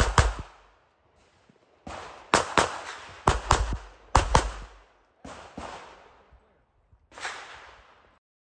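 Compact pistol fired in rapid succession, about a dozen shots, mostly in quick pairs, each shot with a short echoing tail. The shots are spaced a second or so apart, with the last one a little after seven seconds in.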